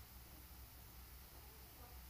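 Near silence: a steady low hum and faint hiss of room tone.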